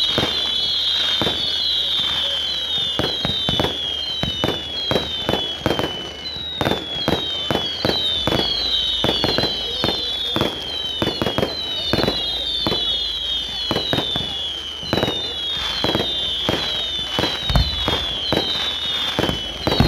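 Fireworks display: a continuous run of short whistles, each falling in pitch, overlapping one after another, over rapid sharp cracks and bangs.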